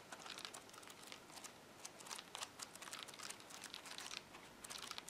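Pages of a new paperback book being flipped through by thumb: a quiet, continuous run of soft paper flicks and rustles.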